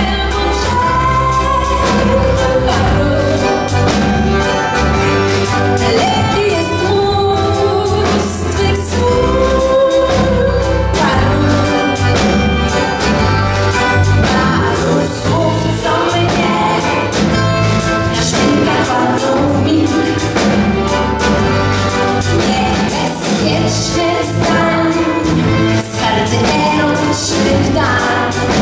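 Live band playing a folk-pop song: two accordions, acoustic guitar, bass guitar and drums, with a woman's voice singing over them.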